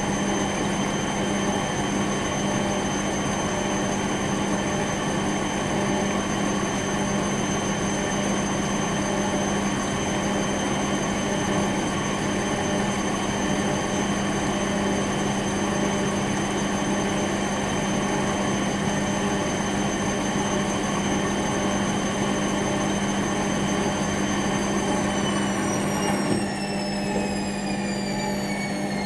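Bauknecht WA 9350 washing machine spinning, a steady motor whine over drum noise. About 25 seconds in, the whine starts falling in pitch as the machine slows, with a click a second or so later.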